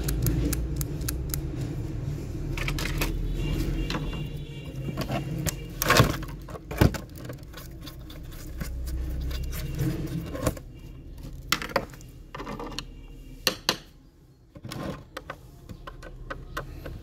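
Plastic parts of a toy remote-control excavator being handled and taken apart: clicks, knocks and light scrapes of plastic and small screws, with the sharpest knocks about six seconds in and a few more later. A low rumble comes and goes through the first ten seconds.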